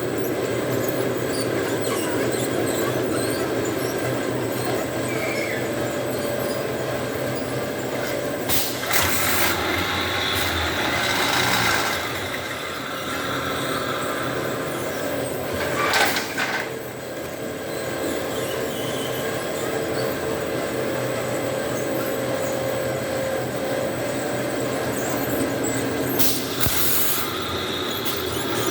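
Extrusion machine running with a steady mechanical hum, broken several times by short bursts of hiss.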